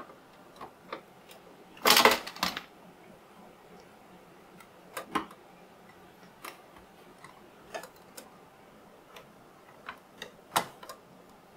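Scattered, irregular small clicks and taps of a scale model car's door and body parts being handled and lined up against each other, with a louder clatter about two seconds in.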